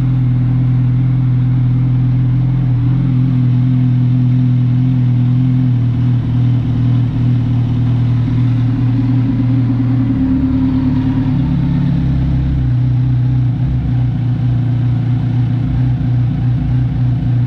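Kawasaki Ninja 1000's inline-four engine idling steadily through an SC Project titanium exhaust, a loud, deep exhaust note.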